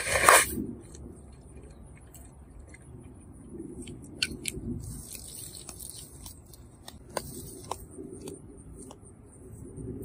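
Compressed air at about 120 PSI from a hand blow gun shoving a column of water through a Dometic Cruisair marine air conditioner's heat exchanger and hoses to flush out debris: one short loud blast at the start, then scattered faint clicks.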